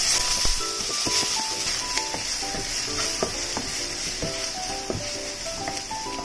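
Diced onion sizzling in hot oil in a nonstick frying pan, stirred with a slotted turner that scrapes and taps against the pan now and then, over light background music.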